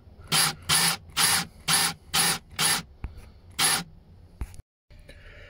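Makita cordless drill with a 19 mm hole saw cutting through a wooden floor in short bursts, about two a second, then stopping about four seconds in as the hole goes through.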